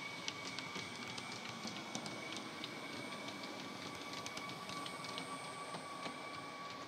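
Brawa Twindexx model double-deck electric train running past with its factory-fitted DCC sound: a quiet, steady high whine with frequent light ticks from the wheels on the track.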